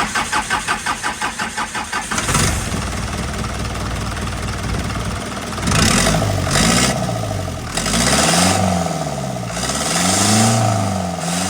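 Isuzu truck diesel engine cranking on the starter with a rapid, even chug, catching about two seconds in and running, then revved up and down several times. It starts and runs after the engine timing was reset and the over-tight valves were adjusted, the faults that had kept it from starting.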